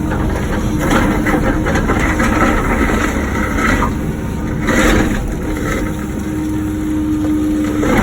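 Wacker Neuson ET145 excavator's diesel engine running steadily under hydraulic work, with bursts of scraping and clatter from the bucket digging out blacktop and concrete, loudest about five seconds in.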